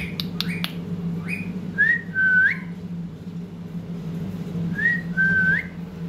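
A clear two-note whistle: a short rising note, then a longer held note that flicks upward at its end. It comes twice, about three seconds apart, over a steady low hum, with a few sharp clicks near the start.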